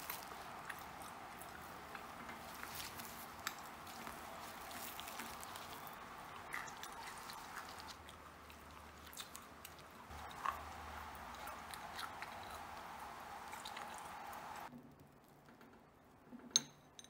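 Faint handling sounds of a sticky chocolate oat energy bar being broken apart in its plastic wrap: small crackles and squishy tearing over a steady hiss that drops away about fifteen seconds in. Near the end a metal fork clinks sharply against a ceramic plate.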